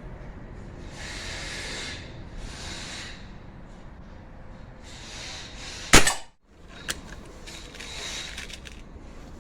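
A single shot from a Remington Express XP .22 break-barrel spring air rifle about six seconds in, a sharp loud crack, followed under a second later by a small click. A few short rustling, hissing noises come before and after it.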